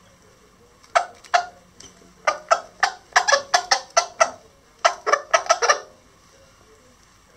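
Lavender Old English Game bantam hen and chicks pecking feed off the brooder floor: bursts of quick, sharp beak taps, several a second, in four clusters that stop about six seconds in.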